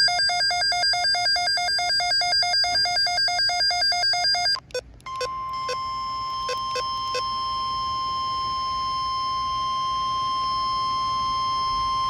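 Rapidly pulsing electronic alert beeping for about four and a half seconds, then a few short clicks, then the NOAA Weather Radio warning alarm tone: one steady, single-pitched tone held without a break. It signals that a weather alert is about to be read.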